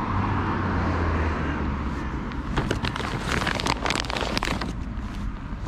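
Low rumble of a passing car that fades after about two seconds, followed by a run of quick, irregular clicks and rustles.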